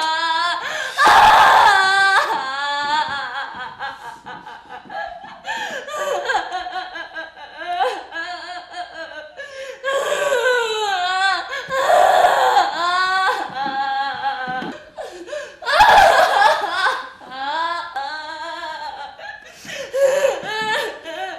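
Women's loud wordless cries in repeated bursts, with the pitch wavering up and down.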